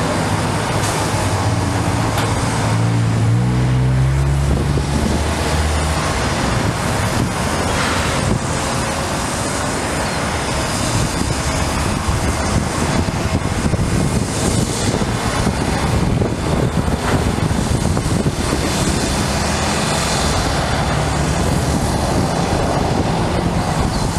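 Caterpillar 336E excavator's diesel engine working hard as it loads demolition debris with its grapple, the engine note climbing about two to four seconds in, with a few faint knocks of rubble.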